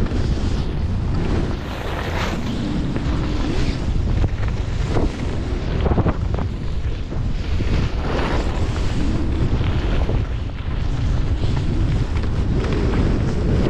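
Wind rushing over the microphone while skiing downhill at speed, with bursts of snow hiss every second or two as the edges carve turns on the groomed snow.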